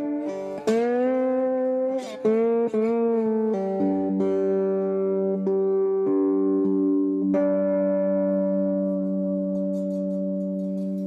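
Guitar played through a 'Rolling Thunder' flip-top amplifier: a few chords slid up and down the neck, then sustained chords left to ring for several seconds, with a fresh chord struck about seven seconds in.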